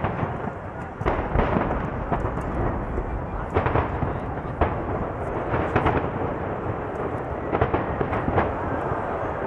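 Aerial firework shells bursting in a rapid barrage: a dozen or so sharp bangs at uneven intervals over a continuous rumble of booms.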